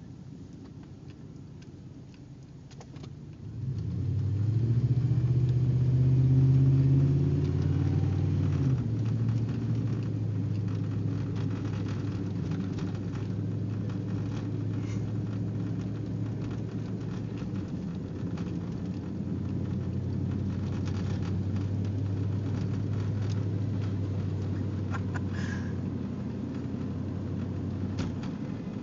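An engine comes up loudly about four seconds in, its pitch rising and wavering for several seconds, then runs on steadily at a lower pitch.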